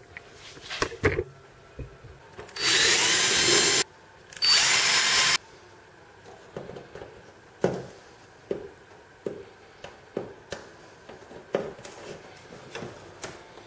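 Cordless drill run twice, about a second each, drilling stitch holes through thin plywood hull panels. Then a string of small sharp clicks as copper wire stitches are twisted tight by hand.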